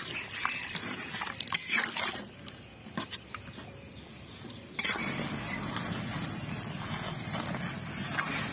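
A spatula stirring and scraping lumps of jaggery in water in an aluminium wok, with a few sharp clicks against the metal. About halfway through it gives way to a steady rushing noise as the jaggery water heats in the wok over a wood-fired clay stove.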